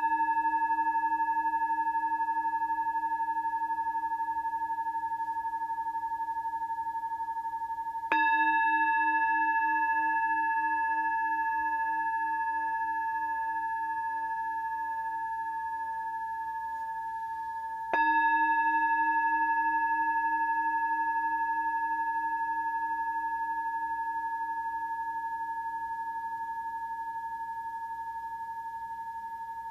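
Metal Tibetan singing bowl struck twice, about 8 and 18 seconds in, each ding ringing on and slowly fading, the ring of an earlier strike still sounding at first. Several tones sound together, and the lowest pulses in a steady wobble.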